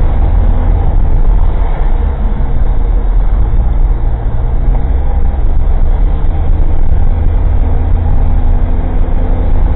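Old Suzuki Jimny kei car's engine running steadily, with road noise, heard inside the cabin through a cheap dashcam's microphone.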